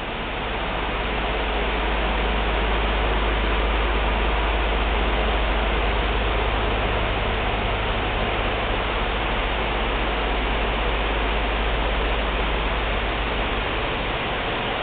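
Steady rushing noise with a constant low hum beneath it, swelling up over the first second or two and then holding even.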